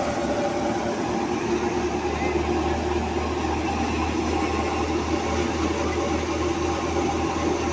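Wheat thresher running steadily under load as sheaves of wheat are fed into it: a continuous mechanical rattle and rush over a constant low engine hum.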